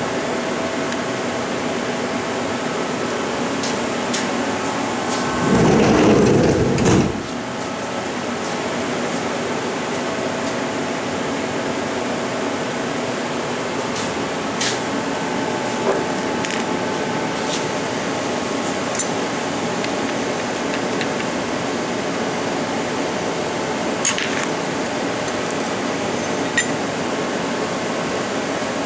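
Steady hum of powered-on machine-shop equipment, made up of several constant tones. A louder low rush lasts about a second and a half about six seconds in, and a few faint clicks come later.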